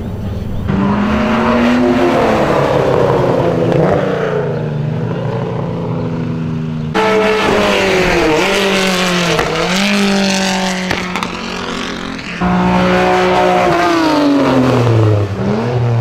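Racing sports-car engines driven hard past on a circuit, in three clips cut together about a second in, midway and near the end: the engine note climbs and drops with gear changes and the cars passing by.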